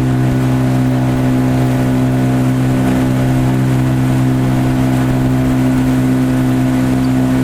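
A motor running at a constant speed: a steady, loud, even hum with no change in pitch.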